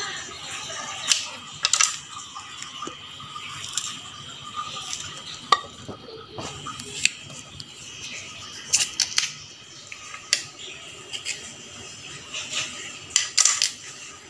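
Kitchen knife peeling and cutting taro stolons (kochur loti), with irregular sharp clicks and taps of the blade and of cut pieces set into a ceramic plate.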